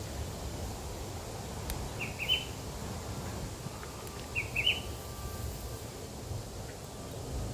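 A bird calling, a quick group of three short high chirps repeated twice about two seconds apart, over a steady low rumble.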